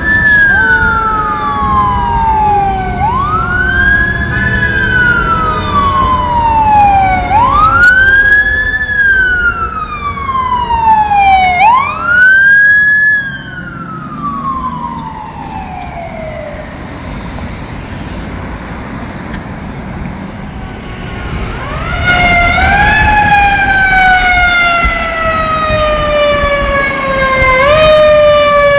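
Fire truck sirens with truck engine rumble underneath. First a wail rising quickly and falling slowly about every four seconds, which fades out around the middle. A little past two-thirds of the way in, another fire truck's siren starts, its pitch falling slowly and jumping back up about every two seconds.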